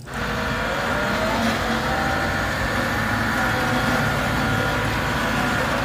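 Caterpillar CS-533E single-drum vibratory soil compactor's diesel engine running steadily as the roller drives along.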